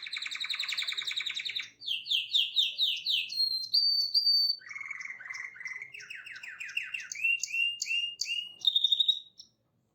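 A songbird singing a varied song: a fast trill, then phrases of quickly repeated high chirps that change pitch from phrase to phrase, cutting off suddenly near the end.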